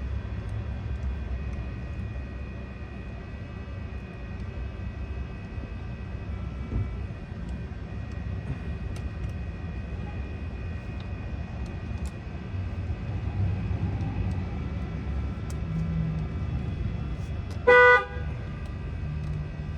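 A car horn gives one short toot near the end, over a steady low rumble.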